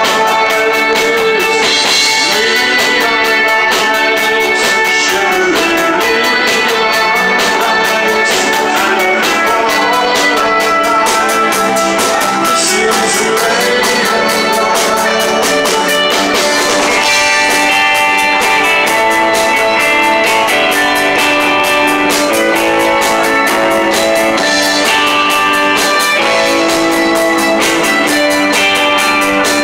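Live rock band playing loud and steady: electric guitars over a drum kit.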